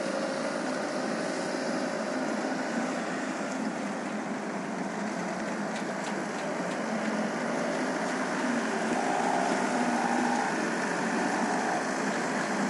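Komatsu PC78US-6 mini excavator's diesel engine running steadily under hydraulic load as the machine digs and swings its boom in mud, with its pitch tones growing stronger about eight seconds in.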